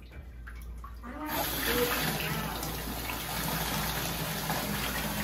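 Bathtub tap turned on: water suddenly starts gushing from the spout into the tub about a second in, then runs steadily.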